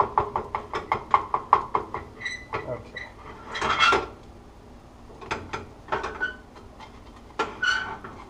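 A frying pan being shaken back and forth on the stovetop, the metal clattering rapidly about five times a second, stopping about two seconds in.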